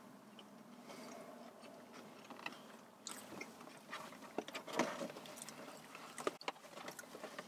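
Faint chewing and biting of people eating soft sandwiches, with a few short clicks and rustles of paper wrapping scattered through.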